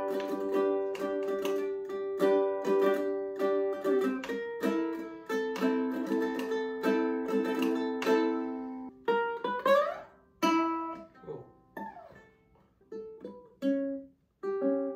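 Ukulele strummed in quick repeated chords for about nine seconds, then a rising slide up the strings and a few sparser strums and single plucks with short pauses between them.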